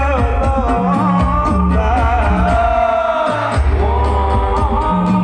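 Live sholawat devotional singing: male voices singing a winding melody through a PA, over a drum beat with deep bass strokes. The drums stop briefly around three seconds in while the voice holds a long falling line, then come back in.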